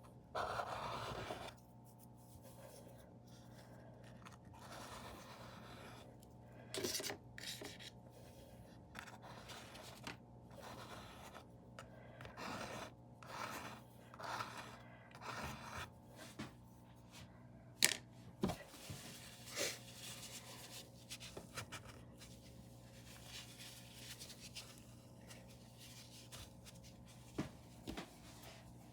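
Faint, irregular scratching and scraping of a paintbrush working paint onto the painting surface, with a sharp click about 18 seconds in, over a steady low electrical hum.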